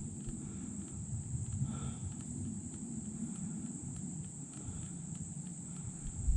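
Steady high-pitched insect trilling in swamp woodland, under a low rumble of wind or handling noise. A few faint short calls come through, the clearest about two seconds in.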